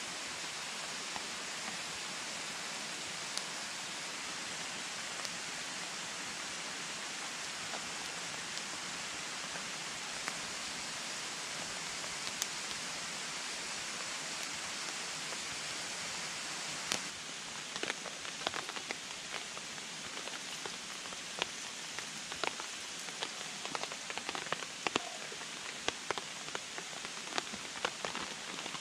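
Steady rushing of a mountain stream, with a few faint crackles from a small kindling campfire. About seventeen seconds in the sound changes, and many irregular sharp taps of water drops on a tarp stand out over the stream.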